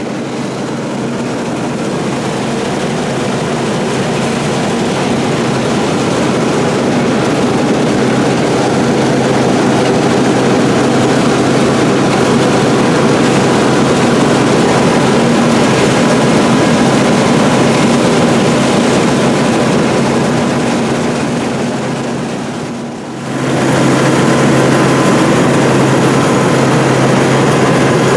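International 815 combine running while harvesting corn, heard from inside its cab: a steady drone of engine and threshing machinery with a constant low hum. The sound dips briefly about three quarters of the way through, then comes back a little stronger.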